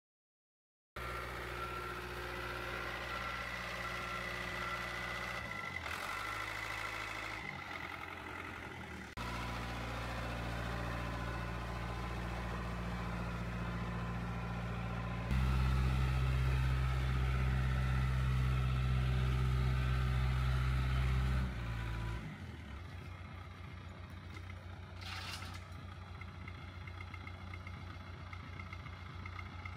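Diesel engine of a CAT 935 track loader running under load, starting abruptly about a second in; the engine note steps up twice, is loudest through the middle, then drops back to a lower, rougher running note for the last third.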